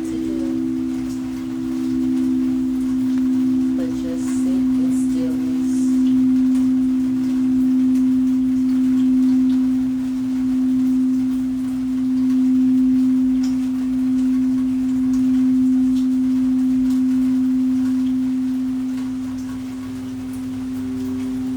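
Singing bowls ringing with a sustained low hum of two steady tones that slowly swell and fade in volume. A higher bowl tone joins near the end.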